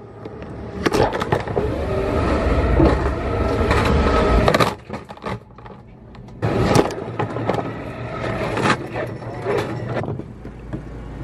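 A phone riding in a plastic tray along an airport security X-ray conveyor: the tray rumbles over the rollers with knocks and clatters. The rumble drops away for a second or two about halfway through, then picks up again.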